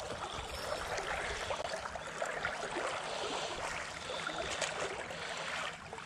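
Shallow creek water running over a gravel bottom: a steady rushing and rippling of the current.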